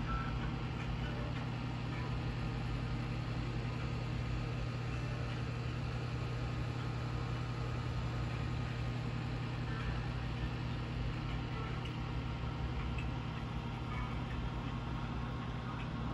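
Steady low mechanical hum, even throughout.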